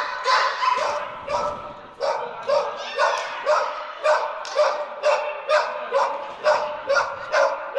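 A dog barking repeatedly in short, high-pitched barks, about two a second.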